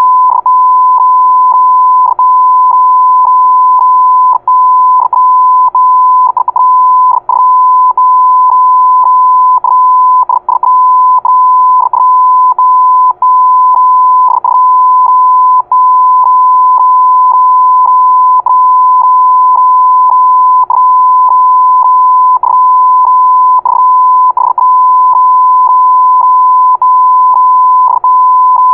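Morse code sent as a single steady high-pitched beep keyed on and off: long stretches of tone broken by short, irregularly spaced gaps.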